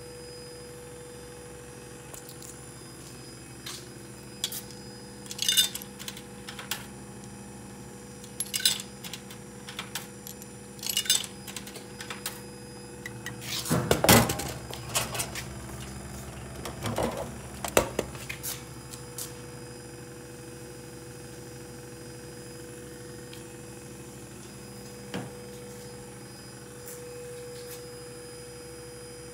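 A vintage Vendo V125 Coca-Cola vending machine vending a can, over the machine's steady hum. Coins clink through the coin mechanism a few times. Then, about halfway through, comes the loudest part: the vend mechanism working and the can dropping into the delivery chute, followed a few seconds later by clunks as the can is pulled out of the chute.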